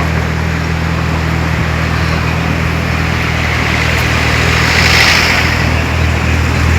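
Porsche 911 Carrera GTS flat-six with an IPE aftermarket exhaust idling steadily, with a brief rush of hiss about five seconds in.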